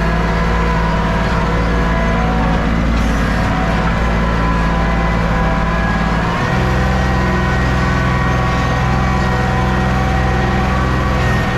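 An engine running steadily at a constant speed, its tone changing about six seconds in.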